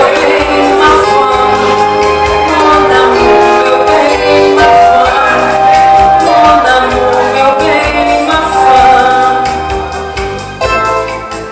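A woman sings through a microphone and PA, with long held notes, over amplified Roland keyboard accompaniment with a steady beat.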